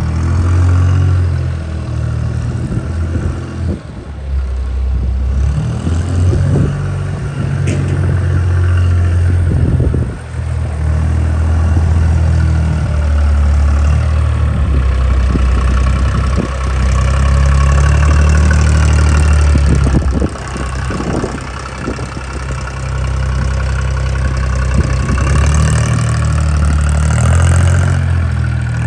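Bernards W1050C compact wheel loader's engine running and revving as the machine drives and raises its loader arm, its note stepping up and down. A whine rises and falls near the end.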